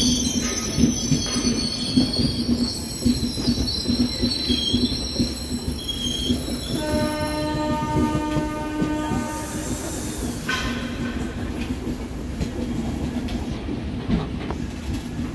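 Express train coaches rolling past close by as the train departs, wheels on the rails with irregular clicks and a high squeal through the first half. About seven seconds in, a train horn sounds for about three seconds.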